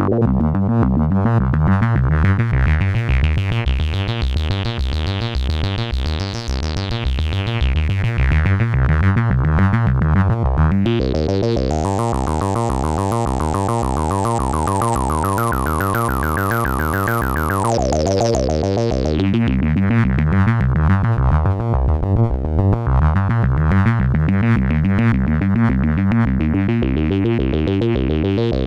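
Behringer MS-1 analog monophonic synthesizer playing a fast, repeating pattern of bass notes. The filter is swept open and closed, so the tone brightens, turns very bright and buzzy about halfway through, then darkens and opens again near the end.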